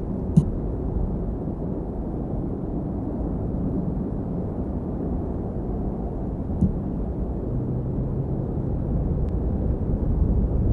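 Wind buffeting an outdoor nest-cam microphone: a steady low rumble that grows louder near the end, with two faint clicks.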